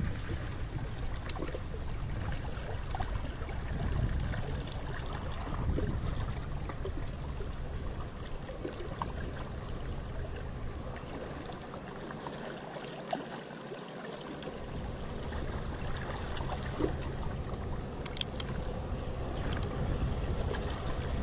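Wind buffeting the microphone in a steady low rumble that drops away briefly about twelve seconds in, over gentle sea water washing against the rocky shore, with a few faint clicks.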